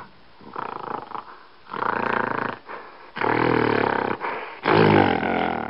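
Gorilla vocalizing: a softer pulsing sound, then three loud, rough calls of about a second each, the last the loudest.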